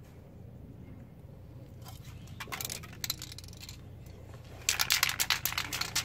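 Aerosol spray can of primer being shaken hard, its mixing ball rattling in quick metallic clicks: a short burst about two and a half seconds in, then steady, loud shaking from near the end.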